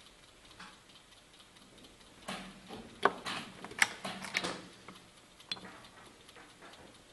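Wooden chess pieces set down on the board and the buttons of a mechanical chess clock pressed in blitz play: a quick run of sharp clicks and knocks about two seconds in, with one more click later.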